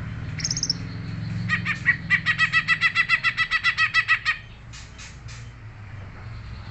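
Green leafbird (cucak ijo) singing: a short high note, then a fast run of about eight sharp, evenly repeated notes a second for nearly three seconds, and a few fainter notes after. A steady low hum runs underneath.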